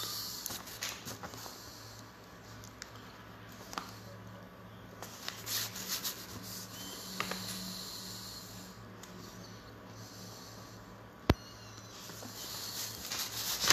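Faint rustling and a ballpoint pen writing on paper at a desk, with one sharp click near the end, over a steady low hum.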